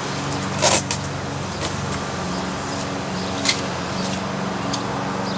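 Plastic wrap (saran wrap masking) crackling in a few short bursts as it is pulled off a freshly spray-painted foam model airplane fuselage, the loudest about a second in and another about halfway, over a steady low hum.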